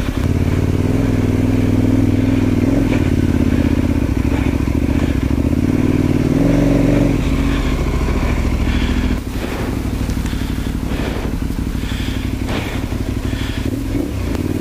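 Motorcycle engine pulling under load up a slippery snow-covered trail. The engine note holds steady, swells briefly, then drops off about nine seconds in, followed by scattered knocks and clatter from the bike over the rough ground.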